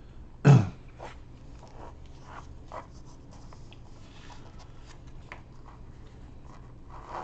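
Pages of a glossy paper rule book being turned and smoothed by hand: light paper rustling and sliding in short strokes. There is one brief, louder thud about half a second in.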